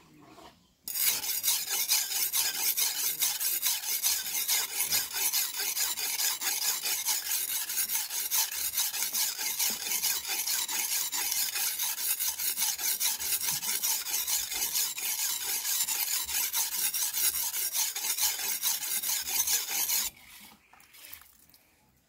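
A wide-bladed butcher's knife being sharpened on a whetstone: a steady rasping scrape of quick back-and-forth strokes that starts about a second in and stops suddenly near the end.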